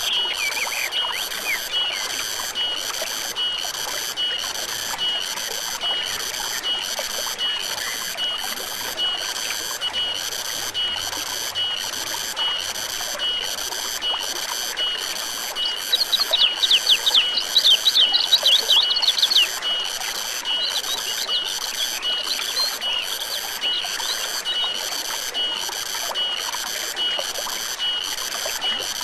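Forest stream flowing steadily, with a high, even chirping repeated about once a second, like a calling insect. A bird breaks in with a quick run of chirps a little past the middle.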